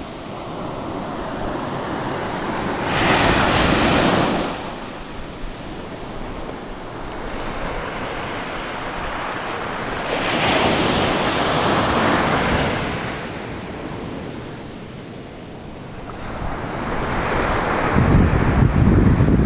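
Surf breaking and washing up a sandy beach, swelling loudly twice, about three seconds in and again about ten seconds in. Near the end, wind buffets the microphone with a low rumble.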